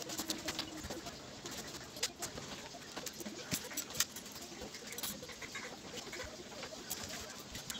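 Soft rustling and light knocks from a bedsheet and pillows being straightened and stacked, with faint bird calls in the background.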